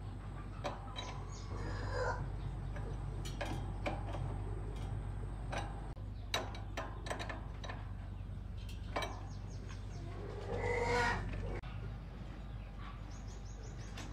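Scattered sharp clicks and knocks of metal parts and hand tools over a steady low hum, with a louder scraping rush about eleven seconds in. Faint high bird calls come early and again near the end.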